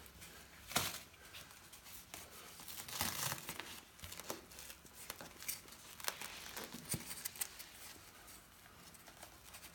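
Elastic athletic adhesive tape peeling off its roll as it is wrapped around a dog's torso, with crackling and tearing noises. The loudest bursts come about a second in and again around three seconds in.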